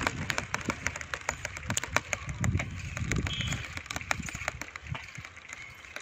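Riding a bicycle along a paved path: a run of sharp clicks and rattles from the moving bike, over low rumbling gusts of wind on the microphone that are strongest about halfway through.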